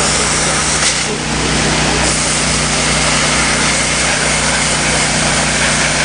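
5000 PSI gas-engine pressure washer running steadily, its engine drone under the loud, even hiss of the high-pressure water jet.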